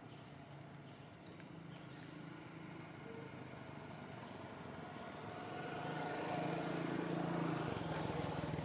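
Motor vehicle engine running, a steady low hum that grows louder over the second half as it draws closer.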